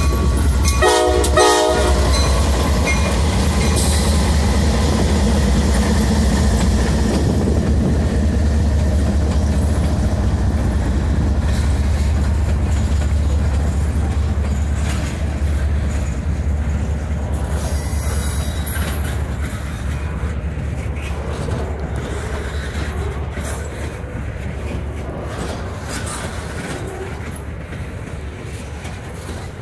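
Norfolk Southern diesel freight locomotives passing close by with their engines running, and a short horn blast about a second in. Double-stack container cars then roll past, the sound slowly fading as the locomotives move away.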